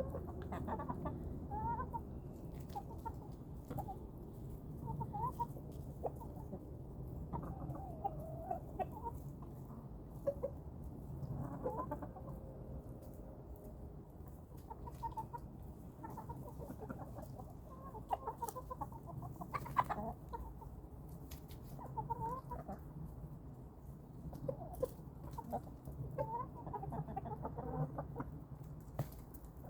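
Chickens clucking, many short calls scattered throughout, with occasional sharp clicks among them, while they pick over kitchen scraps.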